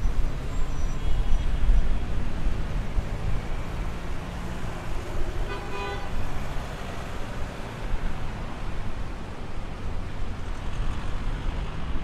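City street traffic rumbling steadily, with one short vehicle horn toot about halfway through.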